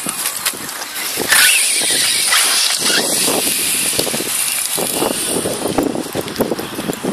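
Electric 1/8-scale RC buggy (Serpent 811 BE Cobra) driving over dirt and grass: the motor whines, rising and falling with the throttle, over the scrabble of tyres on loose soil. Loudest in the first few seconds, when the buggy is close.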